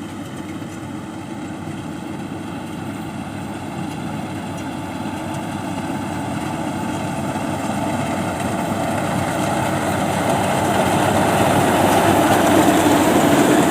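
Rice combine harvester running steadily as it works the paddy, growing louder as it comes closer.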